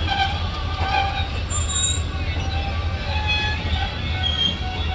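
Passenger railcars rolling slowly past, their steel wheels squealing and squeaking against the rails over a steady low rumble, with one sharp high squeal about a second and a half in.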